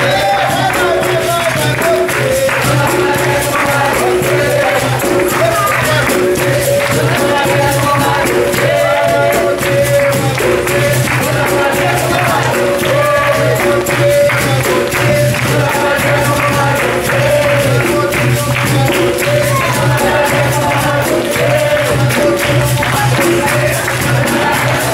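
Capoeira roda music: a group singing, with steady hand clapping and the jingles of a pandeiro keeping the rhythm.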